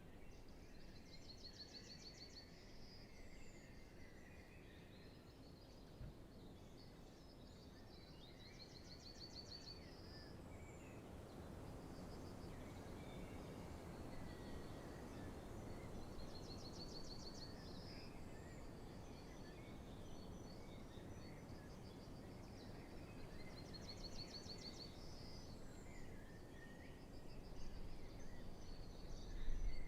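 Spring dawn chorus of songbirds: one bird repeats the same short, high trilled song about every seven to eight seconds, with fainter calls from other birds between, over a low, steady background rumble that swells near the end.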